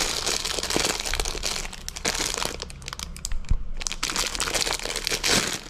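Plastic instant-noodle packaging crinkled and torn open by hand, a crackling that dies down briefly about three seconds in, with one soft knock.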